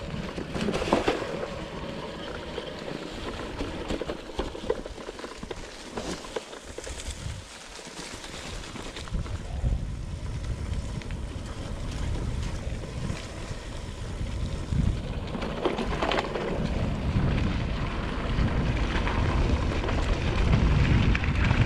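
Wind buffeting the microphone and mountain-bike tyres rolling over a dirt trail on a descent, with occasional knocks from bumps; the low wind rumble grows stronger in the second half.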